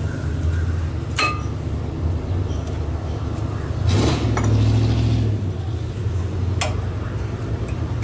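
New front disc-brake pads being seated by hand in the caliper bracket, their steel backing plates giving a sharp metallic clink about a second in and another past the middle. A steady low hum runs underneath, with a louder rushing swell around the middle.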